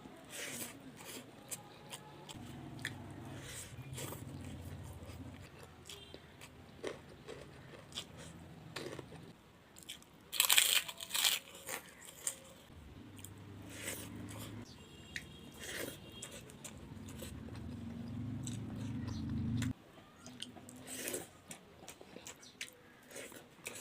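Close-up eating sounds: crunchy food being bitten and chewed with the mouth near the microphone. There are repeated crisp crunches, the loudest cluster about halfway through. A low hum runs underneath and cuts off suddenly about three-quarters of the way in.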